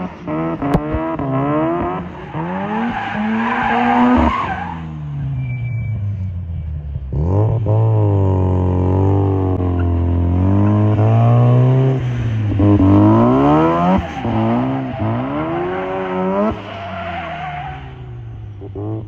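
Mazda RX-7 FC's 13B rotary engine revving up and down through a drift, with tyres squealing and skidding on asphalt. The revs drop away about five seconds in, then climb again for repeated slides.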